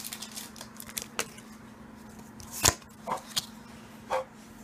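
Foil booster pack of trading cards being handled, crinkling and crackling in short bursts. The loudest crackle comes a little under three seconds in, with a few softer ones after it.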